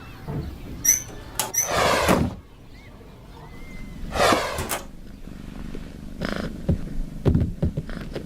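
A cat making two short calls about two and a half seconds apart, with scattered clicks and knocks around them.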